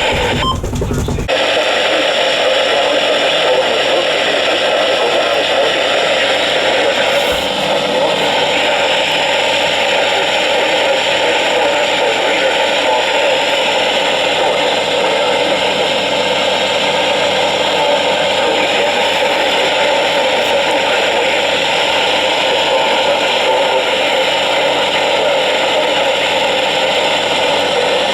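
Weather radio receiver hissing with loud, steady static from a weak, poorly received NOAA Weather Radio signal. A low rumble under the static stops about a second in.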